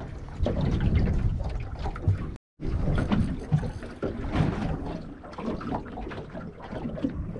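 Water slapping and lapping against the hull of a small aluminium boat on open sea, uneven with scattered knocks, broken by a brief dropout about two and a half seconds in.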